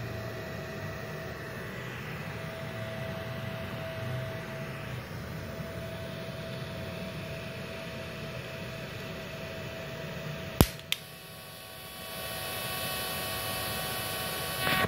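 Small 450-watt IGBT inverter welder running with a steady hum and faint whine. About ten and a half seconds in, two sharp snaps as the TIG arc is struck, then from about twelve seconds the arc burns with a steady hissing buzz that swells briefly just before the end.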